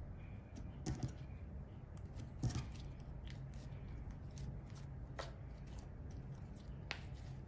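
Slime being stretched and kneaded by hand, giving scattered small sticky clicks and pops, a few of them louder, over a low steady hum.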